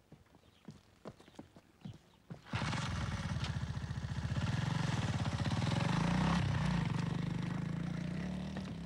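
A motor engine running with a rapid pulsing beat; it starts suddenly about two and a half seconds in, swells, then slowly fades.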